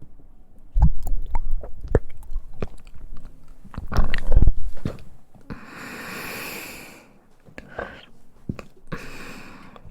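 A young woman's close-miked mouth sounds: chewing and sharp clicks, a louder low sound about four seconds in, then two long breaths out, the second shorter.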